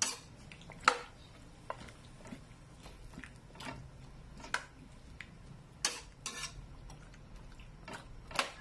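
Metal spatula clinking and scraping against a large metal wok while stirring a heap of raw chicken feet and necks, in scattered, irregular strokes about a second apart.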